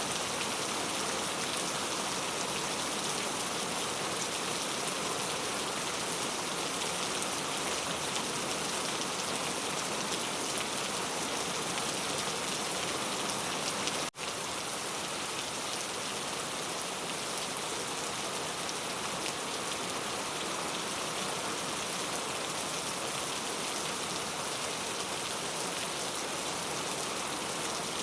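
Steady rain falling, an even dense hiss of drops with no change in strength, broken by a very short dropout about halfway through.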